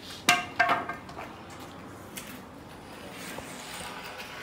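Two sharp hammer blows on a nail in timber roof framing, about a third of a second apart within the first second, each with a short metallic ring; after that only faint background hiss.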